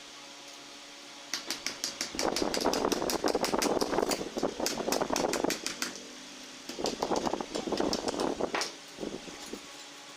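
Metalwork on a sickle blade: two runs of rapid, sharp metal taps, about seven a second, with a rasping scrape under them.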